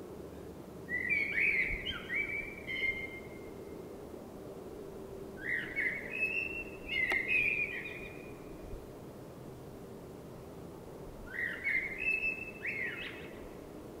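Eurasian blackbird singing in three short phrases a few seconds apart, over a low steady background hum.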